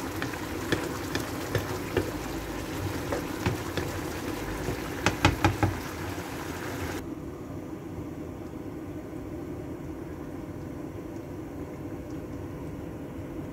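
Coconut-milk fish curry bubbling in a non-stick frying pan, with sharp clicks of a spatula against the pan, including a quick run of four knocks about five seconds in. About seven seconds in the bubbling hiss drops away abruptly, leaving a quieter steady low hum.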